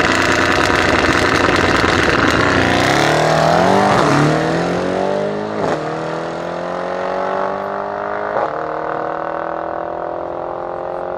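A Mercedes-AMG E63 S (W213) with its 4.0-litre twin-turbo V8 and a Brabus Mercedes G-Class accelerating hard from a standing drag-race start, engine notes climbing through several quick upshifts. Sharp cracks come at the shifts about six and eight and a half seconds in, and the sound fades as the cars pull away.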